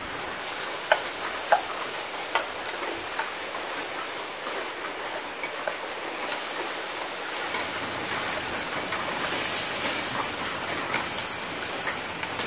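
Sausage sizzling as it fries in a small pot over a soda-can alcohol stove, a steady hiss that grows a little louder past the middle. A fork clinks against the pot about four times in the first few seconds as it is stirred.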